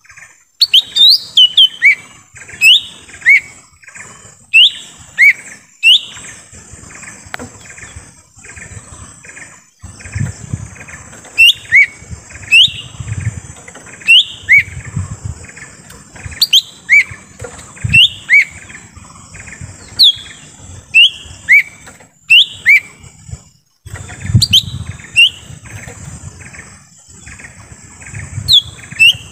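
Cucak ijo mini (lesser green leafbird) singing its lure call: clear whistled notes that each slide downward, given in quick pairs and short runs about once a second. A steady high-pitched hiss runs underneath.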